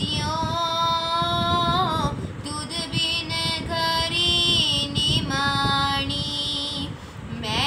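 A girl's solo voice singing a Sikh shabad (devotional hymn) in long, held notes that bend and waver, with a short breath break near the end.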